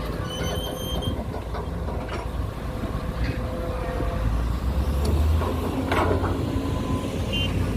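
Heavy vehicle engine running, a low rumble that grows louder toward the middle, with a brief high tone about half a second in.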